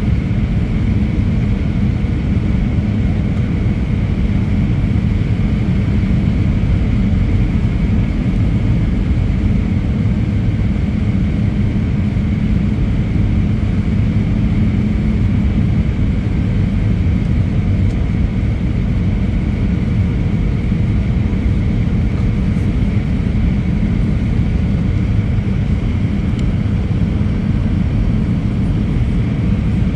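Airbus A320 cabin noise on final approach, heard at a window seat beside the engine: a loud, steady low roar of engine and airflow with a faint steady whine over it.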